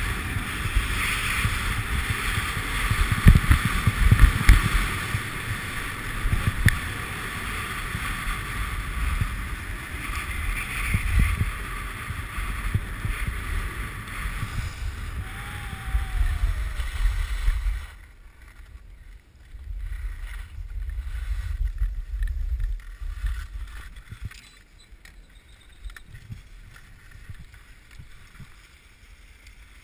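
Skis sliding and scraping over packed snow, with wind rushing over the microphone during a downhill run. About two-thirds of the way through, the noise drops off suddenly as the skier slows right down, leaving only faint snow scraping.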